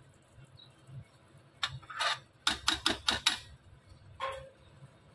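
Metal kitchen utensils clinking and tapping: two single clicks, then a quick run of about five, and one more near the end.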